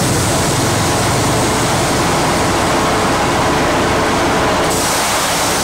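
Steady running noise of a narrow-gauge Darjeeling Himalayan Railway train, its wheels and carriage rumbling, heard from inside the carriage.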